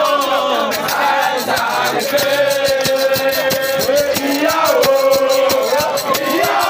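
Music with singing: long held, gliding sung notes over a quick, steady rattling percussion beat.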